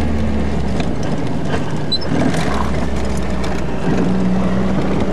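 Alfa Romeo Alfasud driven over a rough dirt track, heard from inside the cabin: the flat-four engine running steadily under a constant rattle and clatter of the body and loose parts.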